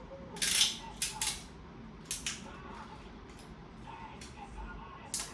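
Packaging being handled during an unboxing: several short rustling, scraping bursts, the loudest about half a second in, then others around one second, two seconds and near the end.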